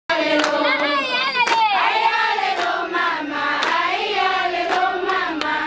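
A group of schoolchildren singing together in unison, with a sharp hand clap about once a second keeping the beat.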